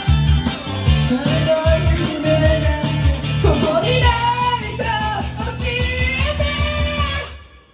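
Rock-pop band backing track with a steady bass and drum beat and guitar, under a man's sung cover vocal with sliding notes. The music stops suddenly near the end.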